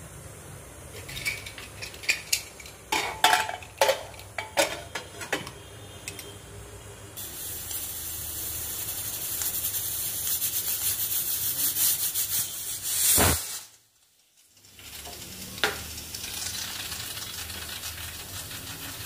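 Metal clinks and knocks of an aluminium pressure cooker's lid being fitted and locked on. Then a steady hiss from the closed cooker heating on the gas burner, which cuts out for about a second and comes back softer.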